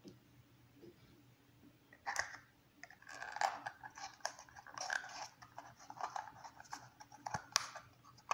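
Thin cereal-box cardboard being folded and pressed by hand into a small box, crinkling and crackling irregularly from about two seconds in, with a couple of sharp clicks near the end.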